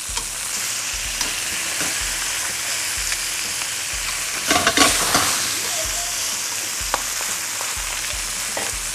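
Halved lobster sizzling in hot oil in a wok, the cut meat side being fried, with metal tongs clicking against the pan as the pieces are turned. A louder spell of sizzle and clatter comes about halfway through.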